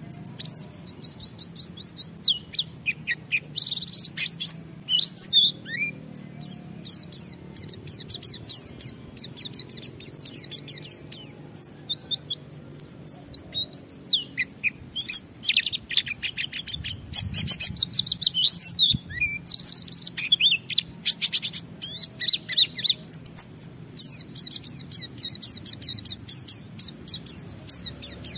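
A white-eye (pleci) singing a long, unbroken 'ngalas' song: a rapid, continuous stream of high twittering chirps and trills.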